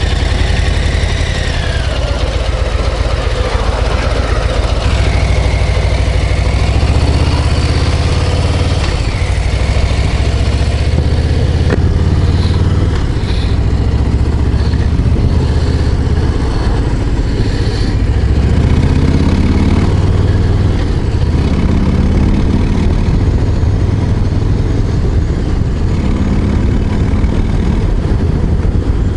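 Harley-Davidson Low Rider ST's Milwaukee-Eight 117 V-twin running loud under way. In the second half its pitch rises in several short runs as the bike accelerates.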